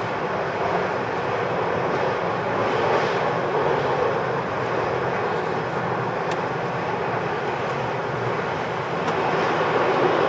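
Steady running noise of an MTR East Rail Line electric train, heard from inside the crowded passenger car as it travels between stations.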